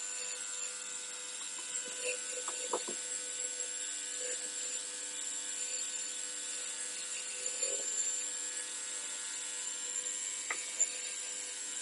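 Ultrasonic cleaner running with a steady electric hum, with a few faint clicks and knocks of parts being handled on top.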